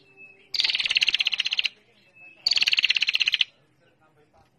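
Female prinia (prenjak) calling in fast trills, two about a second long and a second apart, each a rapid even run of high buzzy notes: the chattering ngetir call that is used to lure other prinias.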